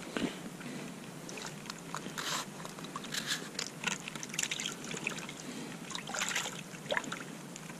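Faint water trickling and small splashes, with scattered short scrapes and rustles, from handling at an ice-fishing hole.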